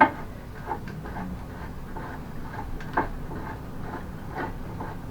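Scattered sharp knocks and clicks of hand tools working on a mobility scooter's hinge pin, the loudest right at the start and about three seconds in, with lighter taps between.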